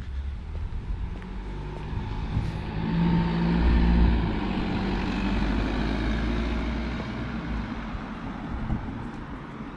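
A car driving past on the road. Its engine hum and tyre noise build to a peak about four seconds in, then fade away.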